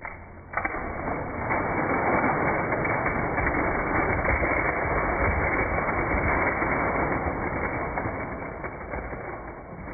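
A toy Jeep knocks into a tower of Picasso magnetic plastic tiles: a sharp knock about half a second in, then a long, dense clatter of hard plastic tiles tumbling and sliding that fades near the end.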